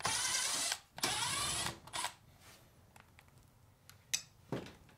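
Milwaukee cordless driver with a quarter-inch nut driver bit running in two short bursts, backing screws out of a refrigerator's sheet-metal back cover, then a brief third burst. Two light clicks near the end.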